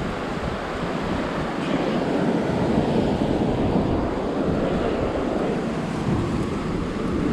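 Ocean surf breaking and washing on a rocky shore, a steady rushing, with wind gusting across the microphone.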